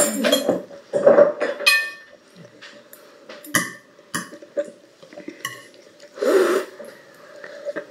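Metal forks clicking and scraping on plates as children eat. Short throaty vocal noises from the children, like a cough or burp, come about a second in and again about six seconds in.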